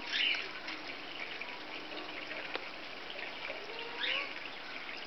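Outdoor summer ambience: a steady chirring of insects, with short bird chirps just after the start and again about four seconds in, and a single click about two and a half seconds in.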